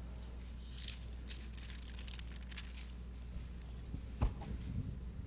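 Bible pages rustling and being turned as people look up a verse: a run of short, faint papery swishes over the first three seconds, then a single soft thump about four seconds in, over a steady low hum.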